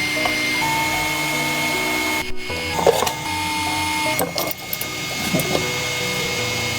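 Background music of long held tones that change pitch in steps, mixed with scattered clicks and knocks.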